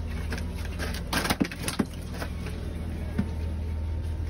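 Steady low drone of a boat engine running at idle, with a cluster of sharp knocks and clatters between one and two seconds in and one more near the end.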